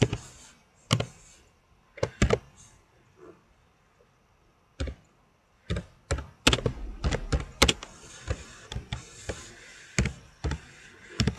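Computer keyboard being typed on: irregular keystrokes in short runs, with a gap of about two seconds near the start and a denser run in the second half.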